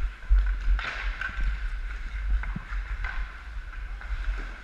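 Ice hockey skates scraping and gliding on rink ice, with a few sharp clicks of sticks and puck, over a steady low rumble of movement on a body-worn camera's microphone.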